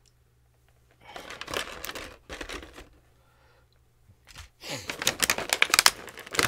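Plastic packaging crinkling and crackling as an action figure is taken out of its box. It comes in two spells: one about a second in, and a denser, louder run of crackles from about four and a half seconds in.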